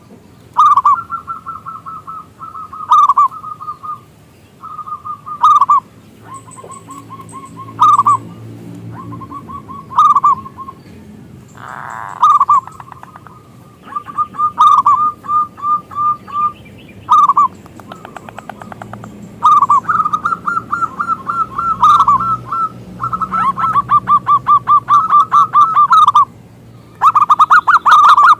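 Zebra dove (perkutut) cooing in repeated bouts of rapid, rolling staccato notes, the bouts a few seconds apart at first, then longer and almost continuous in the second half. Sharp short ticks recur between the bouts.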